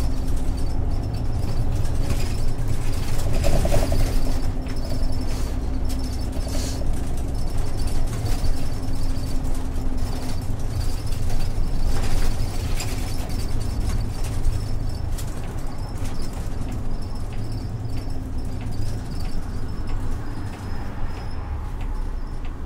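Cabin sound of an Isuzu Erga city bus (PDG-LV234L2) running, with its 6HK1-TCC inline-six diesel and Allison five-speed torque-converter automatic: a steady low drone carrying a thin whine that fades out about ten seconds in, with light ticks and rattles from the body.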